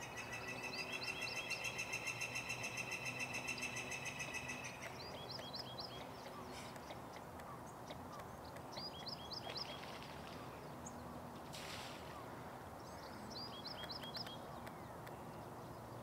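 A small songbird singing: a rapid, even, high trill for about five seconds, then three short runs of quick upslurred notes, over steady low background noise. A brief hiss about three-quarters of the way through.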